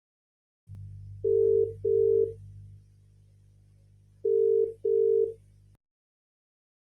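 Electronic alert tone from a played alarm recording: two pairs of short, steady mid-pitched beeps, the pairs about two seconds apart, over a low hum. It cuts in suddenly and cuts off just as suddenly.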